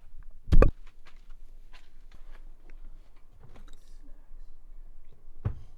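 A loud thump about half a second in, then faint rustling and small clicks in a small enclosed space, and another thump near the end.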